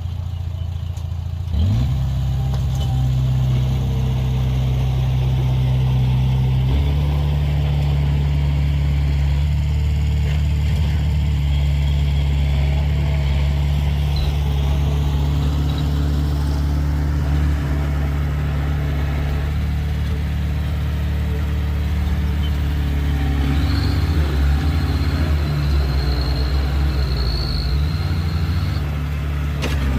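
A vehicle engine running with a steady low drone, which gets louder about two seconds in and shifts pitch again around seven seconds.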